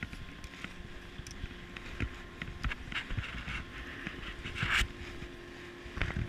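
Steady machinery hum on a ship's deck, with scattered knocks, footsteps and handling noise against a body-worn camera, and a brief hiss a little under five seconds in.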